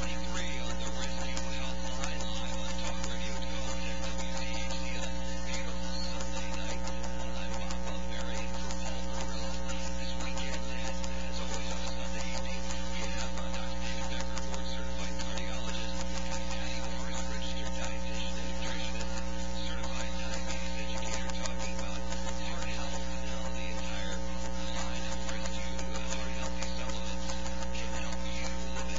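Steady electrical mains hum: a low hum with higher buzzing tones over a hiss, not changing at all.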